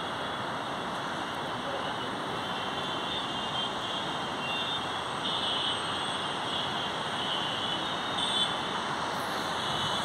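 Steady outdoor city ambience: an even hiss with no single sound standing out.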